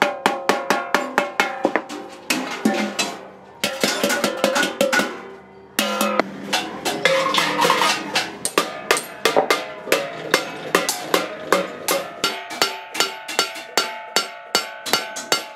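Rapid hammer blows on a thin stainless-steel sheet-metal cylinder, each strike ringing briefly. The blows come about four a second, with a few sudden breaks in the rhythm.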